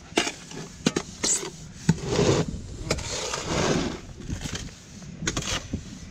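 A metal shovel scraping and knocking against a plastic tub as sand-and-cement mix is shovelled in and slides off the blade: several sharp knocks and two longer scrapes.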